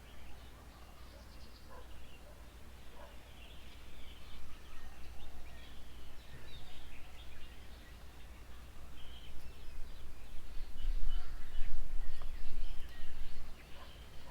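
Outdoor ambience of several wild birds chirping and calling, with many short calls overlapping. Under them runs a low rumble, likely wind on the microphone, which swells and is loudest about two-thirds of the way through.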